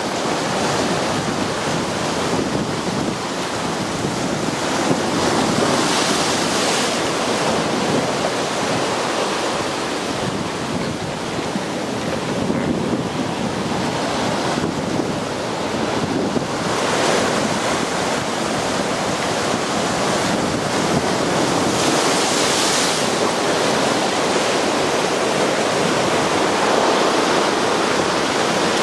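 Ocean waves breaking and washing against a rocky volcanic shoreline: a continuous rush of surf, with louder surges about six, seventeen and twenty-two seconds in.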